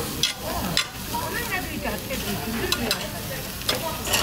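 Soy-marinated pork ribs sizzling on a charcoal tabletop grill. Metal tongs click sharply against the grate several times as the pieces are turned.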